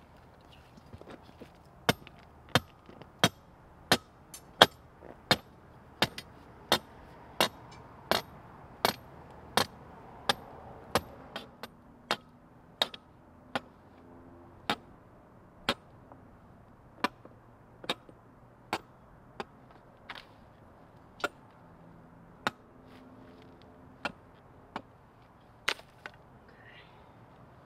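Sledgehammer striking steel, driving reinforcement into the bottom of a gate-post hole. The sharp blows come about three every two seconds at first, slow to about one a second past the middle, and die out to a few scattered strikes near the end.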